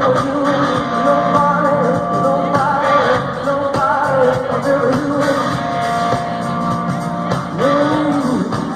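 Live hard-rock band playing, with a singer holding and bending long sung notes over electric guitar and drums.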